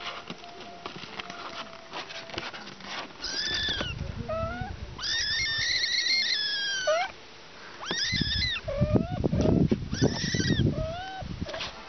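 Kittens meowing, high-pitched and repeated: four or so cries, the longest about two seconds, with shorter lower calls between them. A low rumble joins the cries in the last few seconds.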